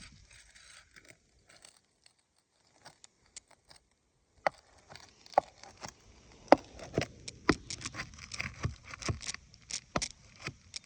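A hand tool worked under asphalt roof shingles to free the nails: irregular sharp scrapes, taps and crinkling of the shingles. It starts about four and a half seconds in and grows busier after that.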